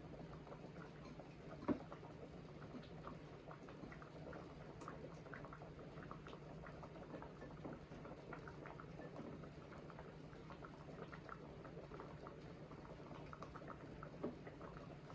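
Faint bubbling and crackling of a pot simmering on the stove, over a steady low hum. A sharp knock comes about two seconds in and another near the end.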